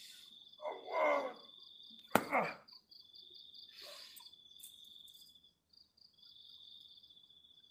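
Crickets chirping in a steady high trill. A short vocal sound comes about a second in, then a sharp sudden sound just after two seconds, the loudest moment, with a falling vocal sound trailing it.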